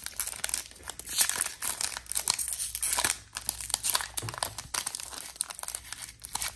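Foil trading-card pack crinkling and crackling irregularly as fingers pick and tug at its sealed end, the wrapper resisting being torn open.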